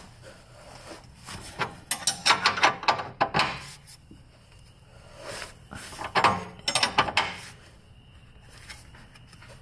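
Two bursts of creaking and clicking, about two seconds in and again about six seconds in, as a wrench turns the forcing nut of a bushing press-out tool. The tool is pressing a corroded, seized rear lower control arm inner bushing out of a BMW E90 subframe.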